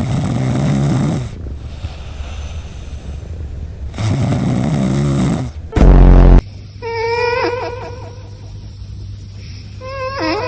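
Cat snoring in its sleep, two drawn-out snoring breaths about four seconds apart. The second is cut off by a very loud, distorted blast. About six and a half seconds in, a different recording with wavering pitched tones takes over.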